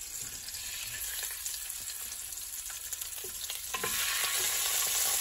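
Raw cockerel portions sizzling in hot oil and bacon grease as they are laid into the pan to brown. The sizzle steps up louder near the end as another piece goes in.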